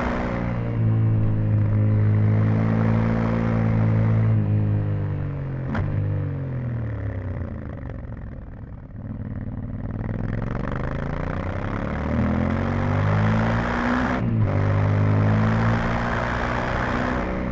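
Yamaha Ténéré 700's 689 cc parallel-twin engine on its stock exhaust, heard onboard while riding. The engine note holds, then falls as the bike slows, then climbs again under acceleration. About 14 seconds in there is a brief cut, a gear change, and then it pulls on at high revs, with wind rushing over the microphone.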